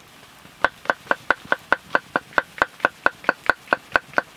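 A knife slicing mushrooms on a block of wood: a fast, even run of about seventeen sharp taps, about five a second, as the blade strikes the wood with each slice.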